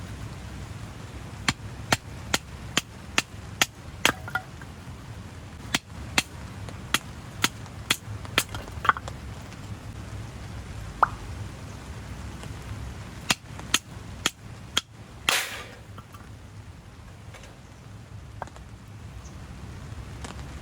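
A series of about fifteen sharp knocks at uneven intervals, followed by a short scraping rustle about fifteen seconds in, over a steady low background rumble.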